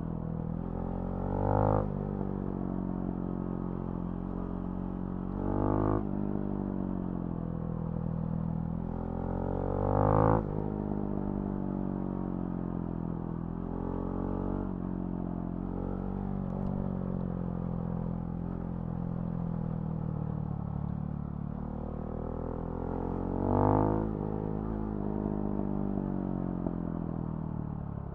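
Husqvarna Svartpilen 701's single-cylinder engine through a Remus NXT aftermarket exhaust, running on the move with its pitch rising and falling as the throttle changes. It gets louder on four short accelerations, about 2, 6, 10 and 24 seconds in.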